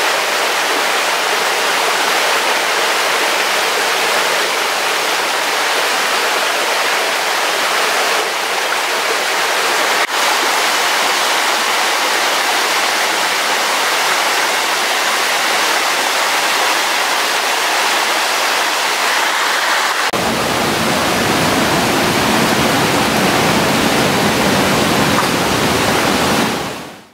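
Stream water rushing steadily over rocks. About twenty seconds in the rush becomes deeper and fuller, and it fades out at the end.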